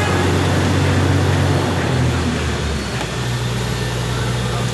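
A motor vehicle engine running close by, a steady low hum that shifts in tone about halfway through, over street traffic noise.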